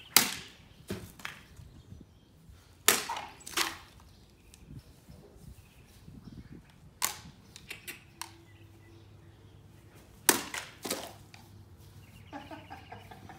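A longsword blade slashing through plastic water bottles on a wooden cutting stand, giving a series of sharp cracks and smacks, mostly in quick pairs. The loudest come right at the start, about three seconds in and about ten seconds in.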